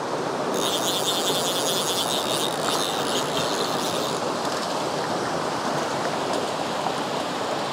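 Trout-stream water running steadily. For the first few seconds a high, rapid trill sounds over it.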